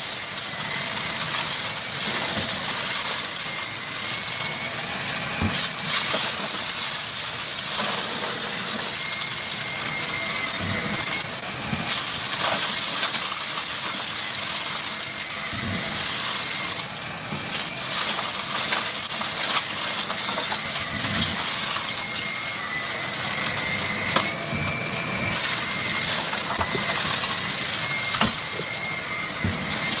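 Shark Rotator upright vacuum running on carpet: a steady motor whine under a constant crunch and rattle of small hard debris being sucked up.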